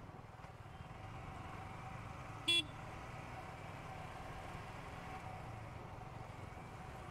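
Yamaha R15 V3 motorcycle's single-cylinder engine running steadily as the bike rolls slowly, with one short horn toot about two and a half seconds in.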